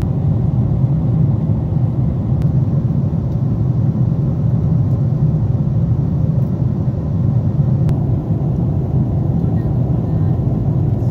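Steady low rumble of a jet airliner in cruise flight, heard from inside the cabin: the even drone of engine and airflow noise.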